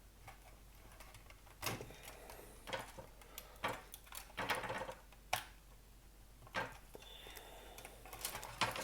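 Light clicks and short scrapes, a handful spread irregularly over several seconds, as small antenna wire connectors are worked loose and unplugged from a wireless access point's circuit board.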